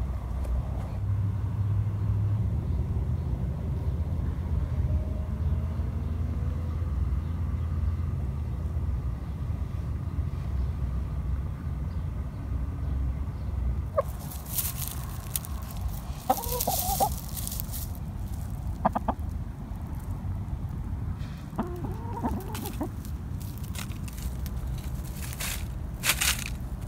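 Domestic hens clucking close by, two short bouts a little past halfway and again a few seconds later, among bursts of rustling in dry leaves and mulch. A low rumble runs through the first half.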